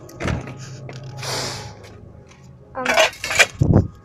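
Handling noise from a phone held close to the microphone while it is carried and swung about: rubbing, a breathy hiss about a second in, a cluster of knocks around three seconds in, and a heavy low bump near the end as the phone hits things.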